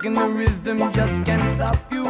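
Reggae song playing: a sung melody over bass and a steady beat.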